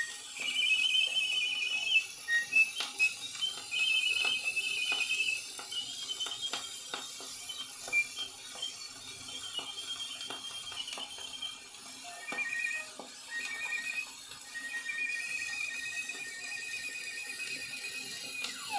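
A 78 rpm shellac record of solo violin playing high, wavering trills and held high notes in imitation of nightingale song, with the disc's steady surface hiss and frequent crackle clicks.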